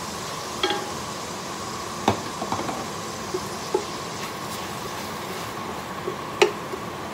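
Wooden spoon stirring chopped onion in a stainless steel pot of hot oil, with a few short knocks of the spoon against the pot, the loudest near the end, over a steady hiss.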